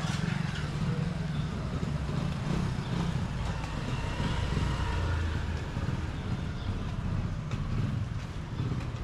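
Small motorcycle and scooter engines passing close along a narrow street, a steady low rumble that is heaviest about halfway through.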